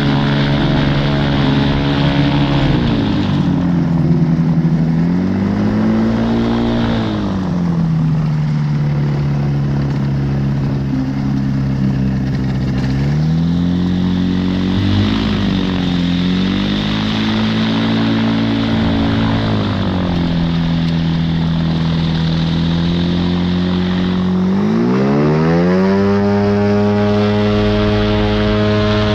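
A light aircraft's propeller engine heard from on board while it taxis on grass. The engine note dips and rises several times as the throttle is worked, then climbs for the last few seconds and holds at higher revs.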